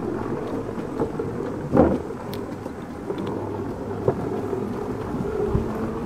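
Electric unicycle tyres rumbling over the planks of a wooden boardwalk, a steady low rumble with a sharp thump a little under two seconds in.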